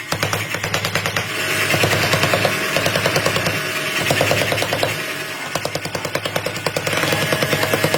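Rapid, evenly repeated hammering on metal, several blows a second, steady and mechanical, from a machine hammer forging steel.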